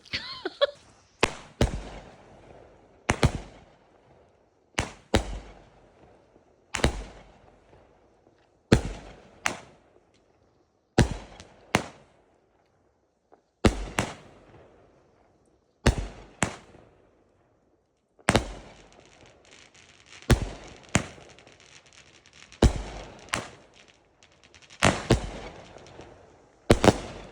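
Consumer fireworks going off: a run of sharp bangs, mostly in pairs about half a second apart, coming every two seconds or so, with crackling between them.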